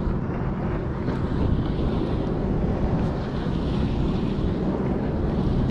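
Steady wind noise buffeting the microphone, with water lapping.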